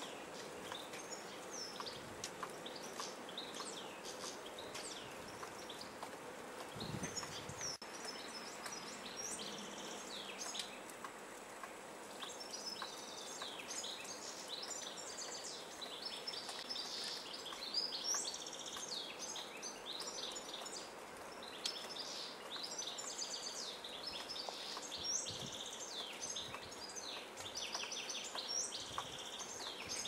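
European goldfinches twittering, a run of many short high chirps that grows busier in the second half. A soft low thump about seven seconds in.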